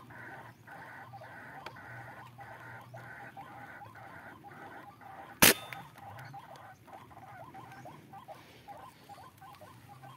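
A single rifle shot about five and a half seconds in, fired at a bird perched in a tree; the bird is hit but flies off. Behind it, a steady run of repeated animal calls.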